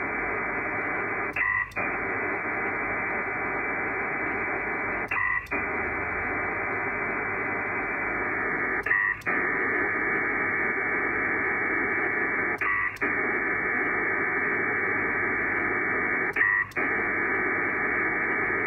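A Pactor 4 HF data signal from an SCS P4 Dragon modem, sending in ARQ mode. It is a steady, dense hiss of data tones up to about 2.5 kHz. About every four seconds it stops for a moment, and a brief short burst is heard in the gap: the acknowledgement from the receiving station, before the next data packet starts.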